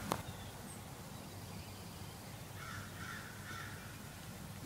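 A crow cawing three times in quick succession, about two and a half seconds in.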